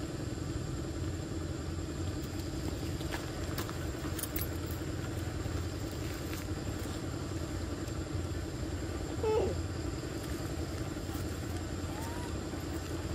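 A steady, even engine hum with no change in pitch, like a motor vehicle running. About nine seconds in there is one short squeak.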